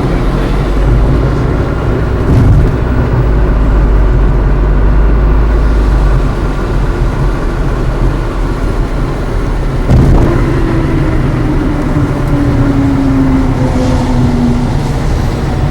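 Car driving on a highway, heard from inside the cabin: steady engine and road rumble. There is a sharp bump about ten seconds in, followed by a low tone that slowly falls in pitch for several seconds.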